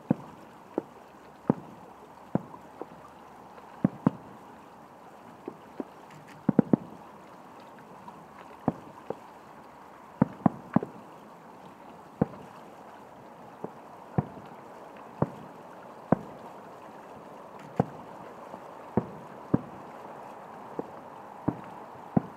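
Aerial firework shells bursting: a string of sharp bangs at uneven spacing, roughly one a second, some in quick pairs, over a steady hiss.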